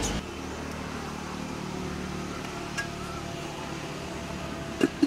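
Steady background hum and hiss, with a faint click near the middle and a couple of sharp clicks just before the end.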